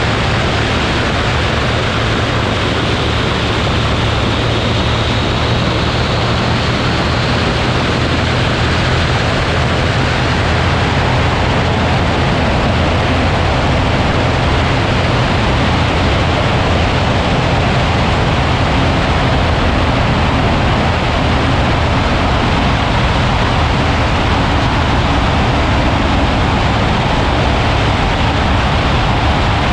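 Ultralight aircraft in flight: a steady engine drone under a heavy rush of wind over the microphone, unchanging throughout.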